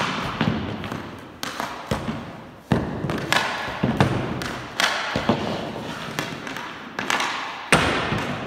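Hockey pucks being shot at a goalie on a synthetic ice pad: a string of sharp knocks and slaps, roughly one a second, each followed by a short ring of echo off the room's walls.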